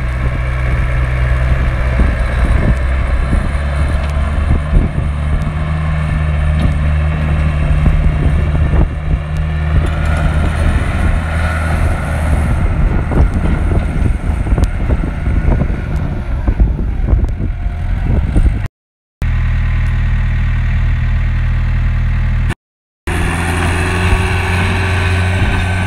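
Caterpillar 226 skid-steer loader's 58 hp Cat 3024C diesel engine running steadily as the machine drives and turns, with tyres crunching and clattering over gravel. The sound cuts out briefly twice near the end.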